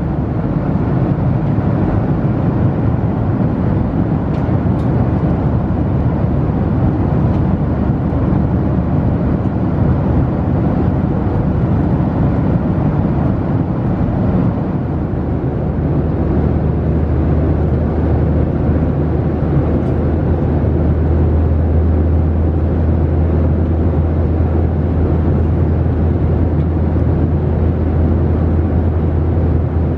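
Boeing 737-700 cabin noise in flight: a steady rush of airflow and engine noise from the CFM56-7B turbofans with a low drone underneath, the drone getting stronger about halfway through.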